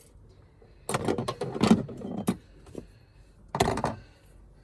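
Hands working an HT lead and parts in a cramped engine bay, making rattling and clicking noises in two bursts, one about a second in and another past three and a half seconds.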